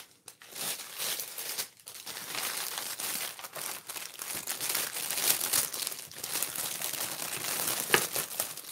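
Clear plastic bags of diamond-painting drills crinkling as they are handled and sorted, with one sharp click near the end.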